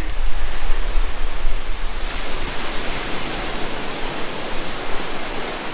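Ocean surf breaking and washing up a sandy shore in a steady rush, with wind rumbling on the microphone.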